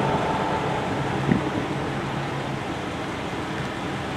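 Steady hum inside a stopped car's cabin: the air-conditioning fan and the idling engine.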